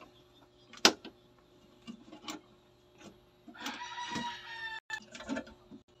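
Sharp clicks as a test-light bulb's plug is pushed into surface-mounted outlets and light switches are flipped; the loudest click comes about a second in. A rooster crows once in the background from about three and a half seconds in, the call falling in pitch at its end.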